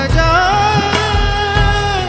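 Background music: a Hindi film song with a steady drum beat under a gliding melody line.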